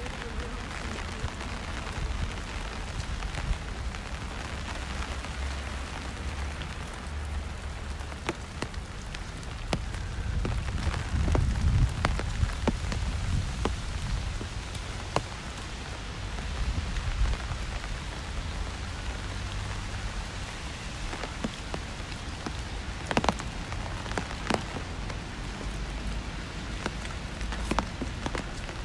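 Steady rain falling on pavement, with a low rumble that swells around the middle and scattered sharp ticks of drops.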